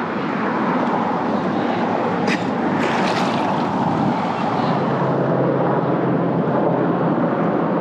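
Five military helicopters flying overhead, a steady drone of rotors and engines.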